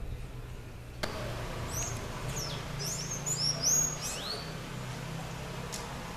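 Small birds chirping: a quick run of short, high chirps that drop in pitch, bunched about two to four seconds in.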